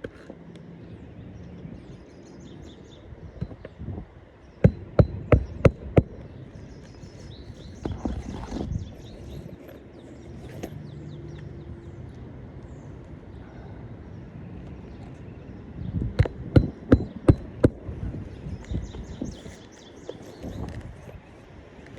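Hammer driving new roofing nails into a shingle: two runs of quick, sharp strikes, about five around five seconds in and about seven more around sixteen to eighteen seconds in, with a few single taps between.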